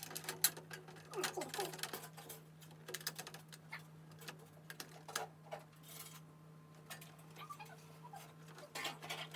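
Irregular light clicks, taps and small rattles of computer hardware being handled and fitted, some in quick clusters, over a steady low hum.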